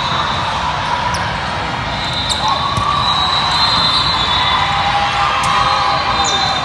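Volleyball rally on a hardwood gym court: sneakers squeaking on the floor and a few sharp slaps of the ball being played, over a steady murmur of spectators in a large, echoing hall.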